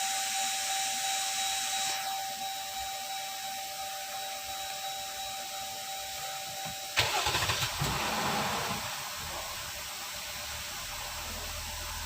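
Jeep Grand Cherokee engine started about seven seconds in: a short crank that catches at once, then settles into a steady idle. It is starting promptly with a freshly fitted auxiliary battery.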